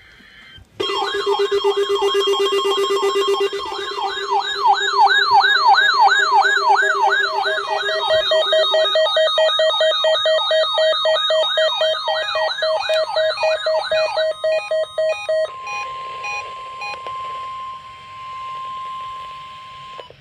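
A jumble of electronic alert tones: a fast-warbling siren-like sweep over steady tones and pulsing beeps. About three-quarters of the way through these cut off, leaving one steady tone near 1 kHz with a light hiss of radio static, like the NOAA Weather Radio warning alarm tone.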